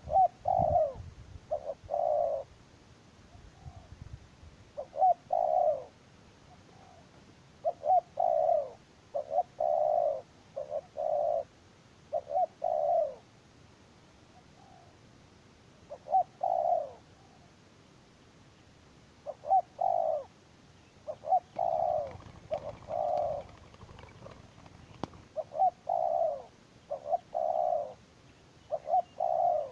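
Spotted dove cooing: repeated phrases of a few short coos each, with pauses of one to three seconds between phrases.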